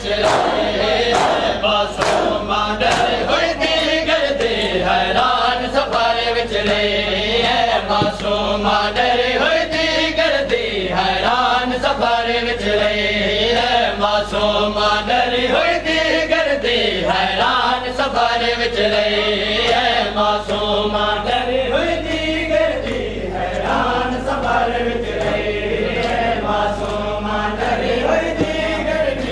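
A crowd of men chanting a mourning lament in unison, with rhythmic chest-beating (matam) slaps about two a second keeping the beat.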